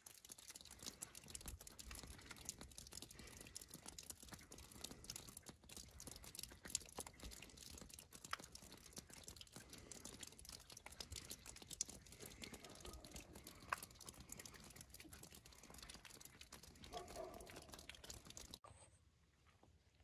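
Faint, dense crackling patter of falling snow, many tiny ticks close together, cutting off abruptly near the end.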